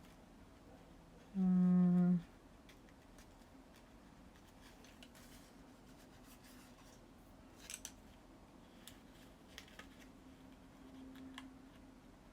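Faint clicks and scratches of tiny die-cut paper pieces being picked out of a cardstock panel. A short hummed 'mm' from a voice about a second and a half in is the loudest sound.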